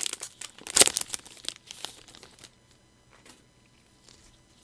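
Foil booster pack wrapper being torn open and crinkled, with the loudest rip about a second in, then dying away to a few faint rustles.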